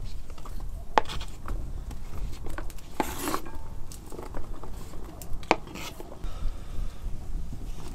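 A knife sweeping sliced carrots off a wooden cutting board into a cauldron. Three sharp knocks of the blade on the board, the middle one followed by a short scrape as pieces slide and drop into the pot.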